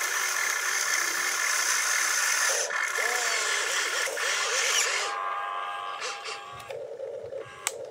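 Motors and gearing of a radio-controlled excavator whining steadily as its arm digs and its upper body swings. About five seconds in the hiss drops away, leaving a thinner whine with a lower hum.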